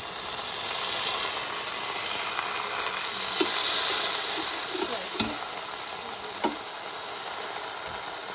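T-bone steak sizzling on the hot grill grate of a Ninja Foodi as it is turned over with tongs: a steady hiss, a little louder in the first few seconds, with a few faint clicks.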